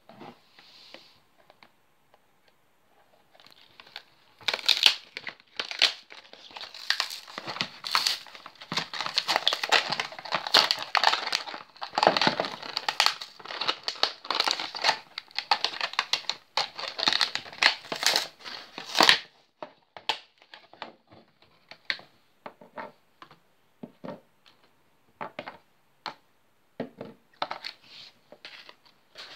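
Toy blister pack being torn open by hand: stiff plastic blister and a foil wrapper crinkling and the paper card backing tearing. The crackling is dense from about four seconds in to about nineteen, then thins out to scattered crinkles and clicks.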